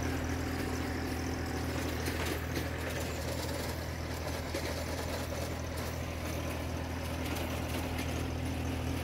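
Farmtrac Atom 26 mini tractor's Mitsubishi diesel engine running steadily at constant speed.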